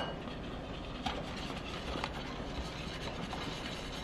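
Wire whisk stirring a thick marinade in a glass bowl: a soft, steady scraping and sloshing, with a few faint clinks of the wires against the glass.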